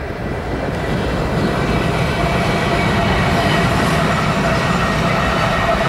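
Four CSX diesel-electric locomotives running light as they pass: a loud, steady diesel rumble with rail and wheel noise, and a thin steady whine above it.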